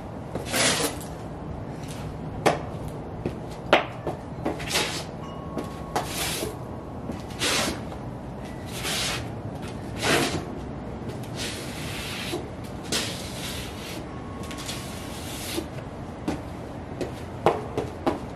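Sheepskin Ugg boots stepping, tapping and scuffing on a concrete floor: irregular sharp taps mixed with short gritty scrapes of the soles, over a steady low background rumble.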